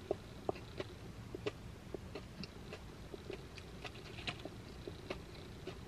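A person chewing a saucy fried chicken nugget: soft, irregular clicks and smacks of the mouth, a few each second.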